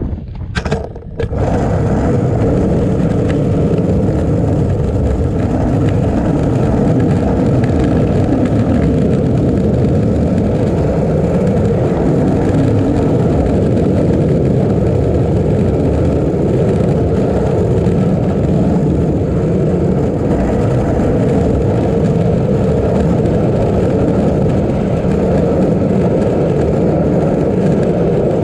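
Skateboard wheels rolling over asphalt: a loud, steady rumble that settles in about a second in after a few uneven bursts.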